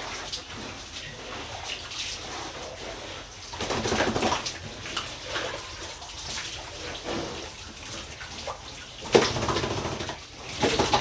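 Water from a garden hose spraying and splashing onto pigs and the concrete floor of their pen, with the pigs grunting; it gets louder for a moment about four seconds in and again near the end.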